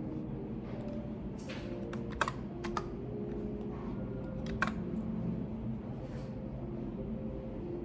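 Occasional keystrokes on a computer keyboard, a few scattered clicks with pauses between them, over a steady low room hum.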